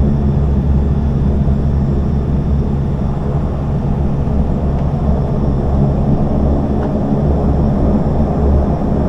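Propeller aircraft engines heard inside the cabin, a loud steady low drone with a constant hum.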